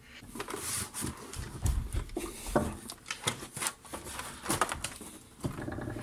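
A heavy Fostex 250 four-track cassette recorder being turned over on a foam-filled fabric cushion: the cloth rustles, with a low thump about two seconds in and several sharp knocks of the plastic case after it.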